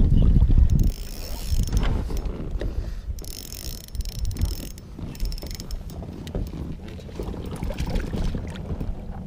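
Fishing reel being cranked to bring in a hooked bass, a run of small mechanical ticks and clicks. In the first second, loud low rumble of wind on the microphone.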